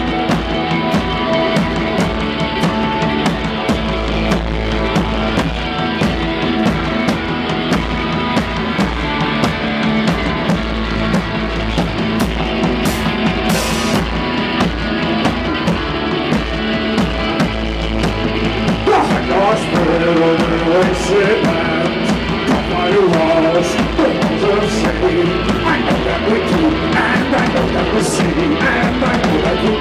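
Live rock band playing through a club PA: electric guitar, electric bass and a drum kit with steady, evenly spaced cymbal hits. A wavering lead melody comes in over the band about two-thirds of the way through.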